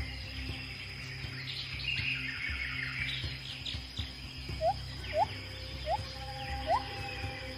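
Rainforest ambience soundscape: birds chirping and trilling over a steady low drone, then, a little past halfway, a string of short rising whistled notes repeating about once or twice a second.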